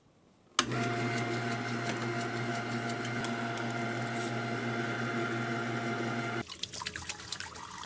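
Electric meat grinder switched on about half a second in, its motor running steadily with a hum as it pushes pork, apple and onion through a fine 2 mm plate. The motor stops about six seconds in, followed by a few light clicks and clatters.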